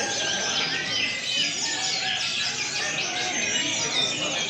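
Many brown-chested jungle flycatchers (SRDC) singing over one another in a dense, continuous chorus of short whistles and trills.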